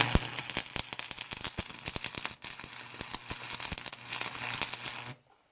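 Electric welding arc crackling and spitting over a low steady buzz as a bead is laid on steel, cutting off abruptly about five seconds in.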